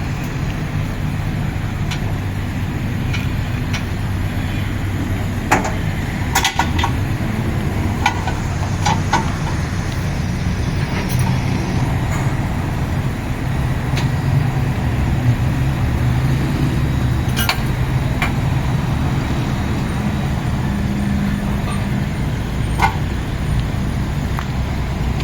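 A motor vehicle engine running steadily with a low hum, with a few scattered clicks and knocks at irregular intervals.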